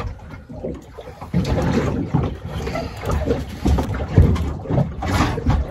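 Irregular low knocks and rustling from handling a freshly caught red emperor on a boat deck while a circle hook is worked out of its mouth.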